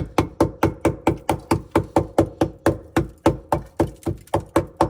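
Small hammer tapping lightly and quickly, about five even taps a second, to chip loose hard ice built up in a freezer because its drain is clogged.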